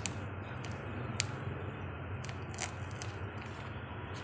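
Scissors snipping at packing tape and bubble wrap on a parcel: a few sharp clicks, roughly a second apart, over a low steady hum.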